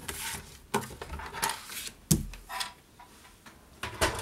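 Pink cardstock handled on a Stampin' Up paper trimmer: the scoring blade drawn along the card with a sliding scrape, a sharp click about two seconds in, then the card lifted off, folded along the score and laid on the table.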